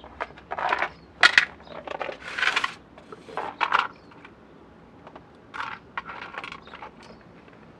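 Black plastic blower motor housing parts being handled and set down on paving stones: a series of irregular clatters and scrapes, thickest in the first four seconds, with a few more around two-thirds of the way through.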